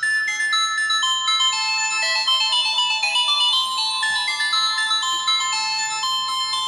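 LG LX125 phone ringtone playing on a Samsung Galaxy J7 Prime: a synthesized melody of short, clear electronic notes stepping up and down in pitch.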